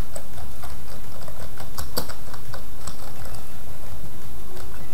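Computer keyboard being typed on slowly, irregular single key clicks a few per second, over a steady low hum.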